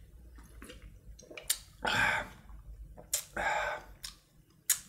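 A person drinking energy drink from a can: a few sharp mouth smacks or clicks and two short breathy sounds, about two and three and a half seconds in.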